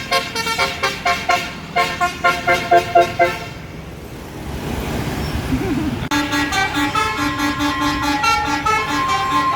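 Tour bus's basuri telolet horn playing a fast tune of short tooting notes, which breaks off about three seconds in and leaves engine noise. About six seconds in the horn starts again with a second tune of longer held notes.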